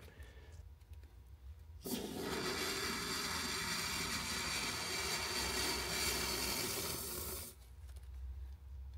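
Aerosol can of expanding spray foam hissing steadily as foam is pushed through its straw nozzle into the gap around a sheet-metal vent sleeve. The hiss starts suddenly about two seconds in and stops about five and a half seconds later.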